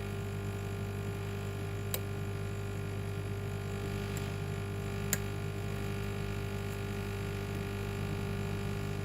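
Steady electrical hum with a low tone and its overtones, with two faint clicks about two and five seconds in.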